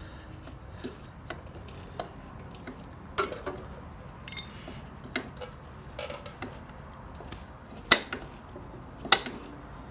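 Scattered light metallic clicks and clinks of a brake pad and small hand tools being worked into a motorcycle's rear disc brake caliper, at irregular intervals, with two sharper knocks near the end.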